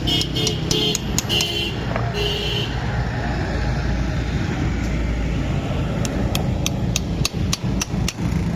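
Hammer blows on metal, a few in the first second and a half and then a steady run of about three a second near the end, over a continuous low motor-like rumble.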